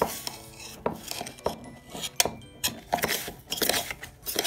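A metal fork beating instant coffee, sugar and a little water in a stainless steel mug: repeated, irregular scraping and clinking of the tines against the mug's metal sides and bottom. This is the early stage of whipping the coffee paste, while it is still dark.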